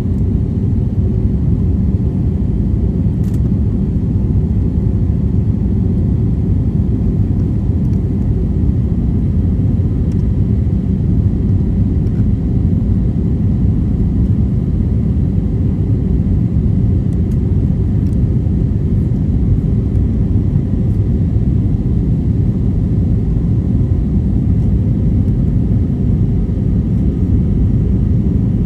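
Steady low rumble of an airliner cabin in flight: engine and airflow noise heard from inside the plane.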